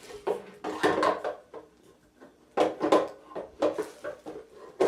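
Animatronic parts being handled during assembly: two spells of knocks, clacks and rustling, with a quieter gap between them.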